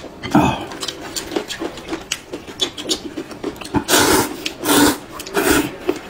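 People slurping noodles, with three long loud slurps between about four and six seconds in and short mouth clicks and smacks of chewing between them.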